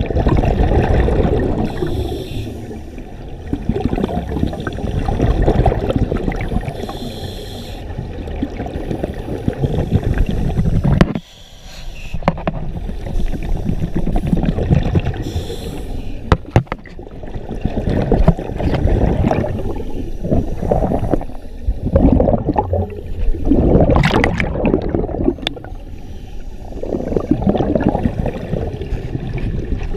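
Scuba diver breathing through a regulator underwater: exhaled air bubbling out in a loud rush with each breath, every four seconds or so, with a short lull about eleven seconds in.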